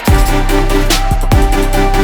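Electronic background music: a steady bass and held synth tones with deep drum hits that drop in pitch, one landing right at the start after a short quiet build.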